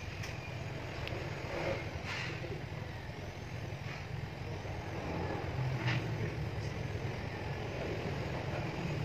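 Steady low background rumble, with a few faint clicks from small metal alternator parts, the regulator and brush holder, being handled.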